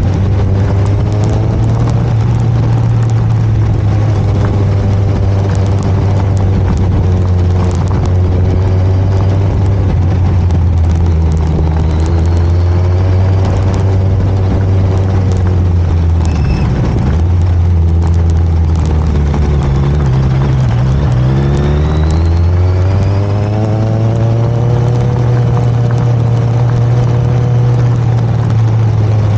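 Sport motorcycle engine running under way with steady road and wind noise; its pitch sags twice, about two-thirds of the way through, as the rider eases off, then rises again as it pulls.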